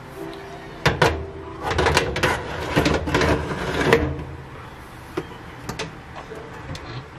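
Metal square loaf pans knocking and scraping as they are set by hand onto an oven's wire rack: a run of clunks and clatter over the first four seconds, then a few light clicks.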